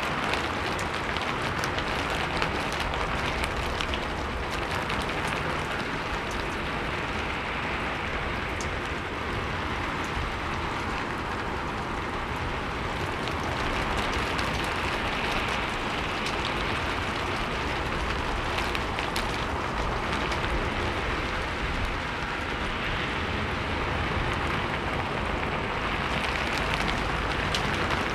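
Wind-driven rain hitting a roof and wooden surfaces, a steady dense patter of drops over a low rumble, swelling and easing gently as the gusts shift.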